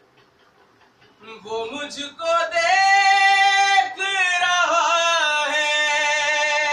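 A single voice singing a Shia devotional lament (noha) in long, held notes with wavering ornaments. It comes in after about a second of quiet and stays loud to the end.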